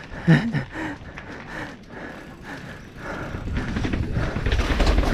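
Downhill mountain bike heard from the rider's helmet camera: tyres rolling on concrete, with the bike rattling and wind rumbling on the microphone. From about three seconds in it grows louder and clatters as the bike drops down concrete steps. A brief loud shout comes just after the start.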